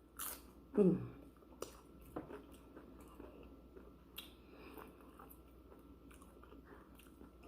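A person chewing and crunching mouthfuls of loaded tortilla-chip nachos close to the microphone. Crisp crunches come in the first few seconds, with a brief vocal sound about a second in, then quieter chewing.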